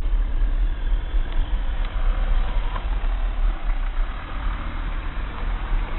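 Audi Q5 driving slowly over a rough dirt track, heard from inside the cabin: a steady low engine and road rumble, with a few faint knocks from the tyres on the stony surface.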